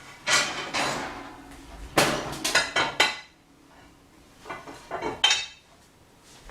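Kitchen pans and utensils clattering and clinking: a rattling scrape about half a second in, a run of sharp metal clacks around two to three seconds in, and a few more clacks around five seconds.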